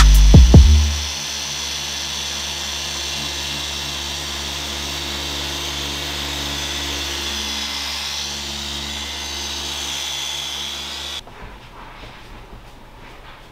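Rupes dual-action polisher spinning a foam pad on the car's paint, a steady hum with a hiss, until it cuts off abruptly about 11 seconds in. Beat-driven music fades out in the first second. After the polisher stops there are faint soft rustles as a microfiber towel wipes the door.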